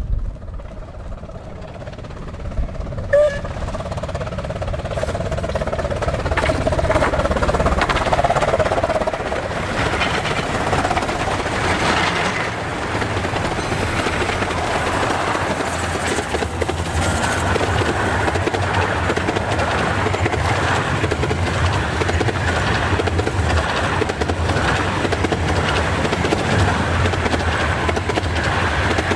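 A 15-inch-gauge miniature steam locomotive and its train running at speed, with steady repeating exhaust beats and wheels clattering over the rail joints. It grows louder over the first several seconds as it approaches, then stays loud.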